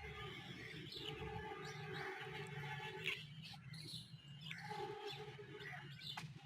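Small birds chirping faintly and irregularly over a steady background hum, with a single sharp click about three seconds in.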